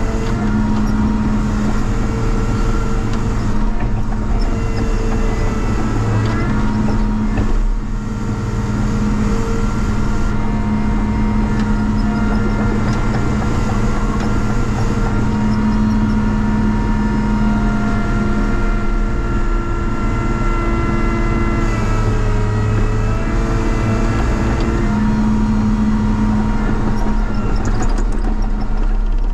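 Cat 953C track loader's diesel engine running under working load, its pitch shifting now and then, with a brief dip in level about eight seconds in. It is running with a broken muffler.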